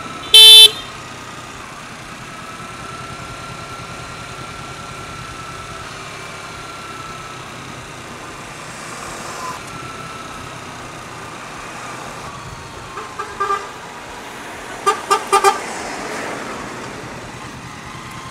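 A vehicle horn gives one loud, short toot about half a second in. Later come a couple of faint short toots, then a quick run of about four beeps. Steady road and engine noise from the motorcycle ride runs underneath.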